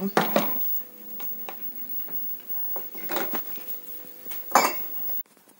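Kitchenware clinking while hot sauce is ladled through a funnel into glass jars: a metal ladle, an enamel pot, a plastic funnel and glass jars knocking together. There are a few sharp knocks, the loudest just after the start and about four and a half seconds in.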